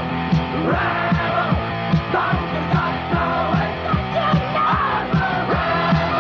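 Punk rock song with shouted vocals over guitar and a fast, steady drum beat, played from a cassette tape recording with a dull top end.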